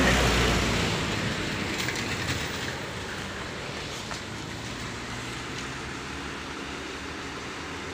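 Old flatbed truck hauling an excavator, running on the road: engine and tyre noise that is loud at first and eases over the first few seconds into a steady, lower hum, with a few light knocks about two seconds in.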